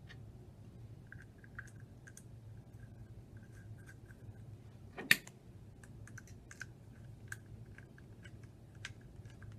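Small clicks and ticks from the handle and thermostatic cartridge of a Leonard bi-metal mixing valve's cover assembly being worked by hand, with one sharper click about five seconds in.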